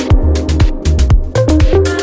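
Background electronic dance music with a steady beat, a bass line and a melody.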